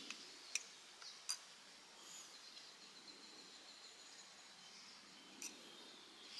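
Quiet outdoor ambience with a few faint, sharp clinks of a metal spoon against a glass coffee cup, two in the first second and a half and one more near the end.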